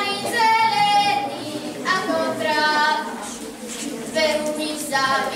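A young girl singing a folk song solo and unaccompanied, in short phrases with long held notes and brief pauses between them.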